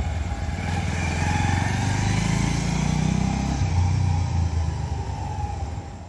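Bajaj Pulsar 150 motorcycle's single-cylinder four-stroke engine running as the bike rides past, its note rising and then falling, and fading away near the end.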